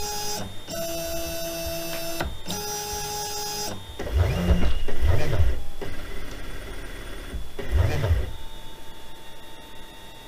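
Yeti SmartBench CNC router's stepper motors whining at steady pitches in short runs, stopping and restarting at a new pitch, as the machine drives itself against its limits to auto-square and calibrate its axes. Later come three low sweeps that rise and fall as the axes speed up and slow down.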